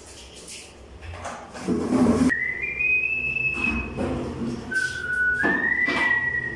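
High, clean whistling in two long notes, each held for a second or two and stepping up in pitch partway through. A short burst of noise comes just before the first note.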